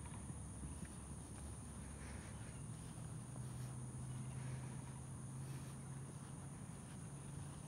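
Steady high-pitched drone of an insect chorus, with a low steady hum setting in about three seconds in.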